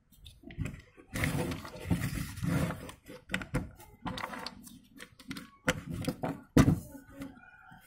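Large plastic toy building bricks being handled: a stretch of rustling and scraping, then scattered sharp clicks and knocks as bricks are moved and pressed together.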